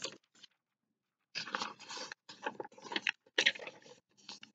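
Paper pages of a printed booklet rustling and crinkling as they are turned and smoothed flat by hand. A brief rustle comes at the start, then a busier run of crinkles from about a second and a half in until near the end.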